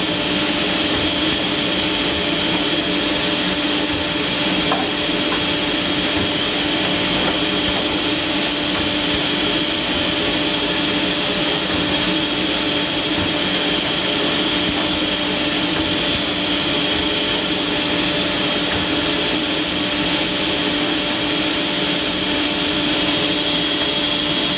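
Koch UNIFLEX select.line point-to-point drilling machine running through its panel drilling cycle. Steady rush of dust-extraction air with a constant low hum and a high whine, unchanging throughout.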